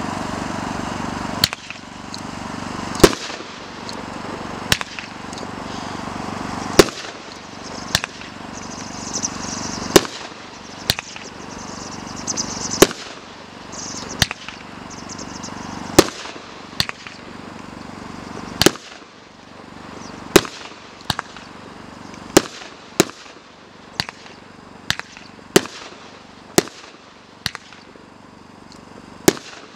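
Consumer firework cake firing a long run of sharp bangs, about one a second, as its shots burst into trailing gold stars.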